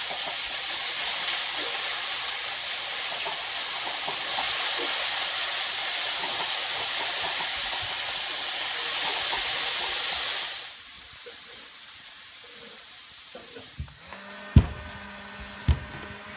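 Water running steadily from a tap with an even rushing hiss, then shut off abruptly about eleven seconds in. A few light clicks and knocks follow.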